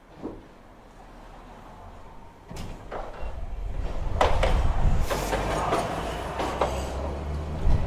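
Toyohashi Railway 3200-type streetcar running on its rails: quiet at first with a short click, then a knock about two and a half seconds in and a low rumble that grows louder, with several sharp clatters through the second half.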